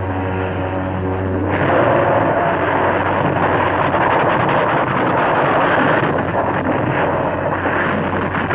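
Film sound effect of an ocean liner striking an iceberg: a loud, rumbling crash noise starts about a second and a half in and keeps going, over a steady low drone.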